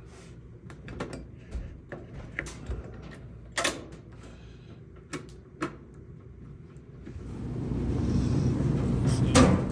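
Clothes dryer being worked by hand, its door and controls clicking and knocking, then about seven seconds in the drum motor and exhaust blower start and run, growing louder to a steady rush.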